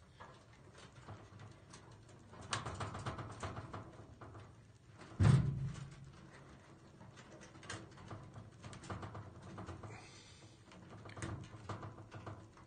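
Small clicks and rustles of electrical wires and plastic wire nuts being handled and twisted together inside a metal light fixture, with one louder knock about five seconds in.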